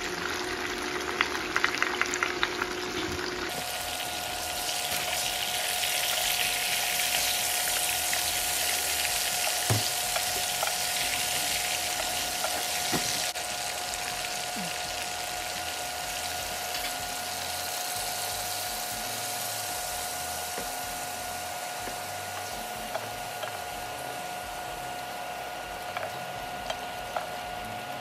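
Chicken wings frying in hot oil in a stainless steel pan: a steady sizzle, loudest in the first half and a little quieter after about thirteen seconds. A few light utensil clicks near the start, and a steady high whine runs underneath.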